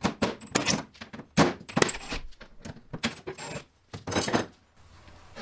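Hand tools clinking and knocking against the metal inside an International Scout's door: a quick, irregular run of sharp metallic clanks with a few short pauses.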